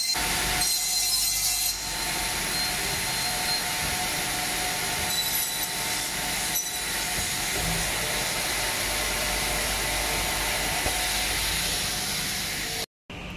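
CNC double-end cutting saw running, its saw blades and motors giving a steady whirring hiss with a thin whine in it. About a second in there is a louder stretch of the blade sawing through wood. The sound breaks off briefly near the end.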